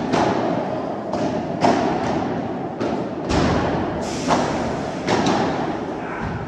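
Padel ball being struck by solid rackets and bouncing on the court during a rally: a run of sharp knocks at irregular spacing, about one a second, each ringing on briefly in the hall.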